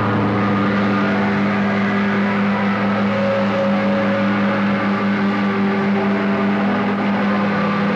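Loud distorted electric guitars from a punk band playing live, held notes droning steadily with no clear beat.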